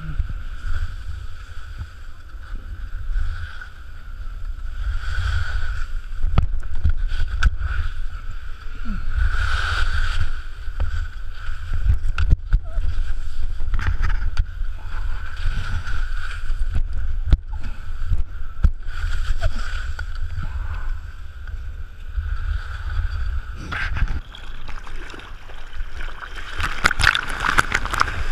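A mouth-held GoPro's own sound while skiing down an indoor snow slope: a heavy steady rumble of skis sliding on the snow and the camera jostling in the teeth, with scattered knocks. About 24 seconds in it gives way to the rush and splash of sea water while surfing.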